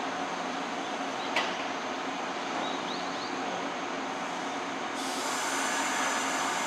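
Izukyu 2100 series Resort 21 electric train at a station, its equipment giving a steady hum. There is a sharp click about a second and a half in, and a high hiss sets in about five seconds in.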